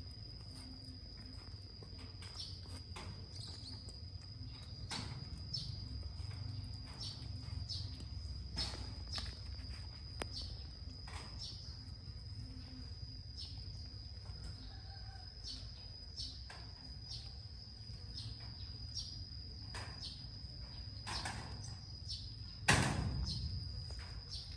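Cat chewing cooked rice from a plastic plate: a run of small irregular clicks and smacks, with a louder knock near the end, over a steady high-pitched whine and a low rumble.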